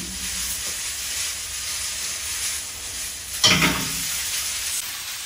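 Linguine with artichokes and parsley sizzling in a stainless steel frying pan over a gas flame as the pan is tossed. About three and a half seconds in the pan clatters loudly against the burner grate.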